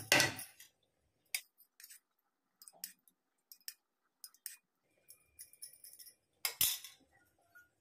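Light clinks and taps of a steel spoon against a steel oil cup and a granite-coated pan as oil is spooned into the pan, with a louder clink at the start and another near the end.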